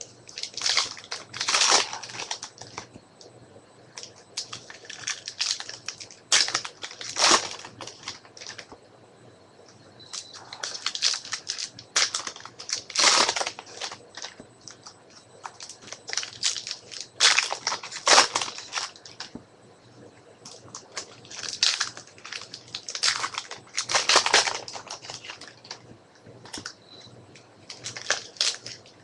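Crinkling and tearing of 2014 Topps Strata football card pack wrappers as packs are opened by hand, with cards rustling, in irregular bursts separated by short quiet gaps.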